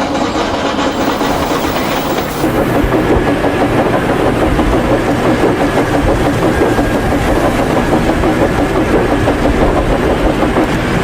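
Train running along the track, a continuous rumble and rattle that steps up in loudness about two seconds in.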